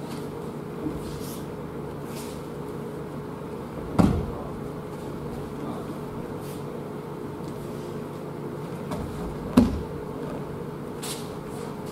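Two heavy thumps of a body landing on tatami mats in aikido breakfalls, about four seconds in and again near the tenth second, the second the louder, over a steady low hum.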